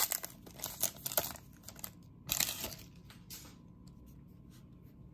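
Crinkly wrapper of a Donruss football card pack being torn open and crumpled: a quick run of sharp crackles for the first three seconds or so, then much quieter rustling as the cards come out.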